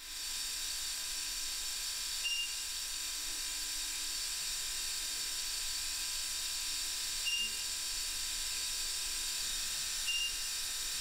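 Steady high-pitched hiss, with three brief high beeps about two, seven and ten seconds in.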